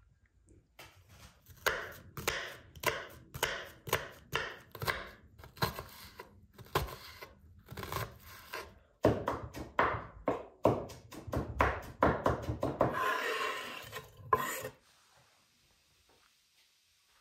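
Kitchen knife chopping red onion on a wooden cutting board, about two sharp strokes a second, with a second or so of continuous rasping just before the chopping stops a couple of seconds before the end.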